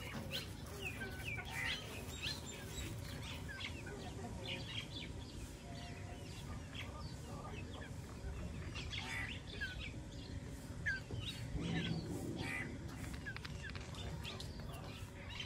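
Birds chirping in short, high calls scattered throughout, with chickens clucking now and then.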